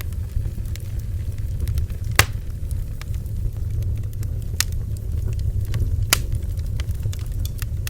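Bonfire burning with a steady low rumble of flame, broken by sharp wood crackles and pops at irregular intervals, the loudest about two, four and a half and six seconds in.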